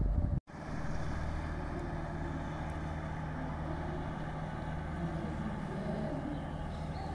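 Boat engine running steadily, an even low drone over water and wind noise. The sound drops out completely for a moment about half a second in.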